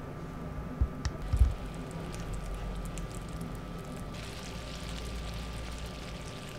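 Sugar syrup coming to the boil in a stainless saucepan: a fizzing crackle of bubbles that grows louder about four seconds in, over a steady hum. A few low thumps sound in the first second and a half.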